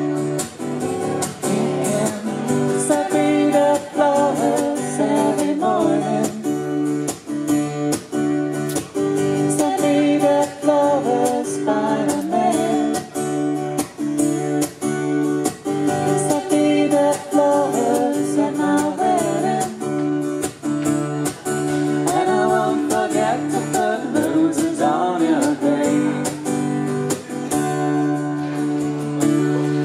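Acoustic guitar strummed in a steady rhythm, with voices singing a melody over it in stretches.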